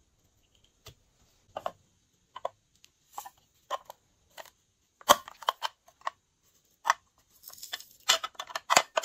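Slime being squeezed and worked by hand, giving irregular sticky clicks and pops that come closer together from about halfway through, densest near the end.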